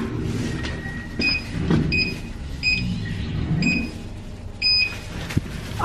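A series of about six short, high electronic beeps, evenly spaced, over a low steady rumble.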